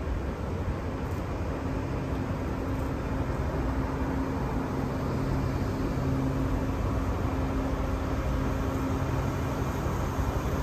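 ER20 diesel locomotive engine running with a steady low drone and hum.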